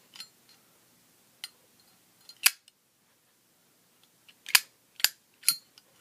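Brass-cased Zippo lighter being worked by hand: a few sharp metallic clicks, the loudest about halfway through, then three quick ones near the end, as the hinged lid is flipped and the flint wheel is struck to spark.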